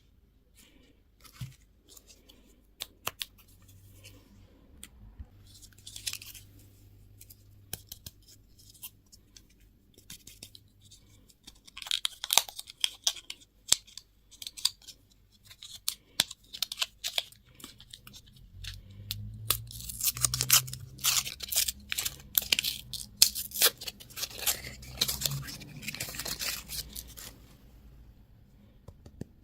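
Plastic candy and toy packaging being handled, crinkled and torn open, with many sharp clicks and taps. The crinkling is loudest in a long stretch in the second half.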